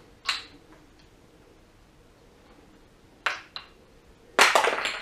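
Wooden kendama clacking as the ball is caught: one sharp clack, a quick pair of clacks about three seconds in, then a louder, longer clatter near the end.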